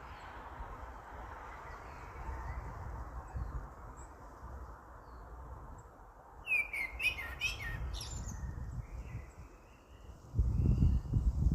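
Songbirds singing in spring: a quick run of high chirping notes about six seconds in, followed by fainter whistled notes. A loud low rumble comes in near the end.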